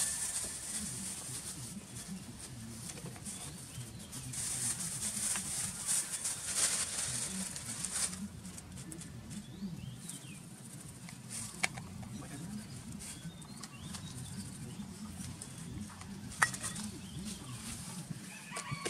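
Plastic bag rustling and crinkling as it is handled, in two stretches, with a few sharp clicks from plastic containers being handled later on.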